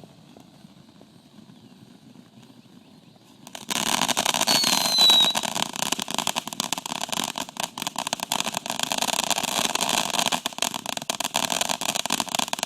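A consumer firework going off: a loud, dense hissing crackle starting about four seconds in, after a few seconds of quiet, with a brief falling whistle just after it begins.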